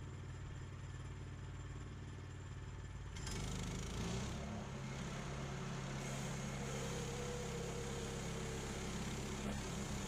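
Small gasoline engine of a Woodland Mills HM126 portable bandsaw mill running steadily, then speeding up and getting louder about three seconds in as the band saw gets ready to go into the first cut of the log.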